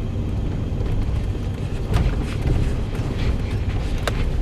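A vehicle driving slowly on a snow-covered road: a steady low engine and tyre rumble, with a few short knocks from bumps.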